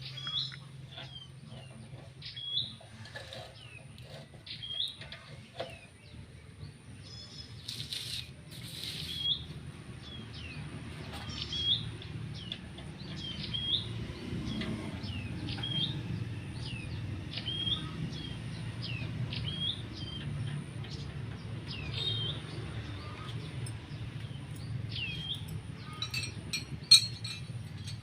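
A bird chirping over and over, short sharp calls about once a second, over a steady low rumble. A few sharp clicks come near the end, with one loud knock.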